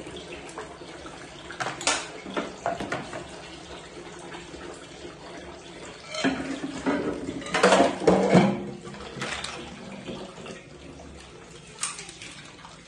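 Kitchen tap running into a sink during hand dishwashing, with clinks and clatters of dishes and pans knocking together. The loudest clatter comes about six to eight and a half seconds in.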